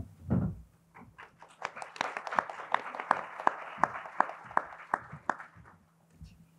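Audience applauding in a hall: clapping starts about a second in, swells into steady applause with single claps standing out, and dies away near the end. Two low thumps open it.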